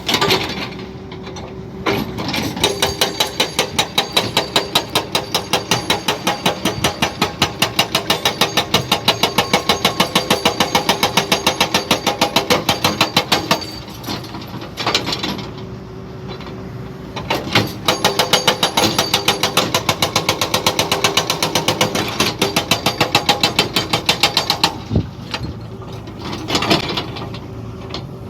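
Jackhammer hammering in rapid, even strokes, in runs of several seconds broken by short pauses, over a running engine.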